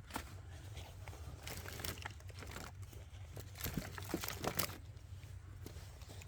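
Faint, irregular rustling with scattered small clicks and knocks, like objects being handled, over a steady low hum.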